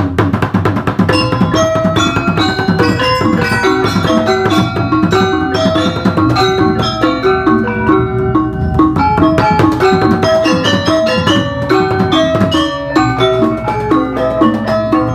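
Music of quick struck mallet-percussion notes over drums, running steadily.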